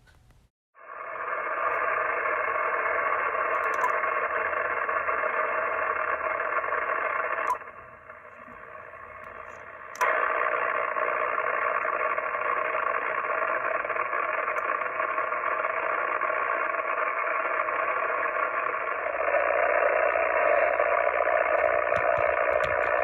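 Power-line hash noise heard through a ham radio receiver: a steady, rough static filling the receiver's voice passband, generated by loose connections on the utility transformer at the street. It drops lower for about two seconds, about eight seconds in, then comes back at full strength.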